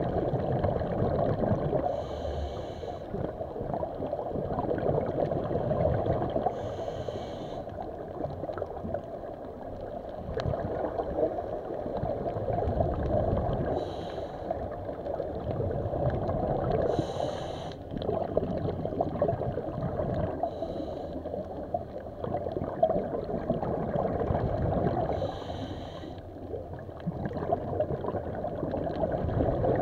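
Water sloshing and gurgling in uneven swells, with a short hiss every few seconds.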